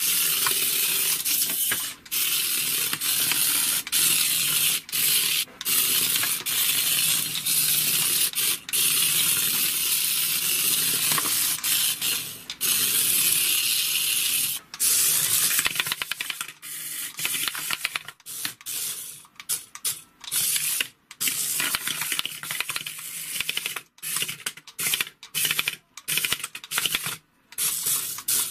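Small electric motor and gears of a remote-control toy car whirring with a hiss. It runs in long stretches at first, then in short on-off spurts as the throttle is pulsed, cutting out completely between them.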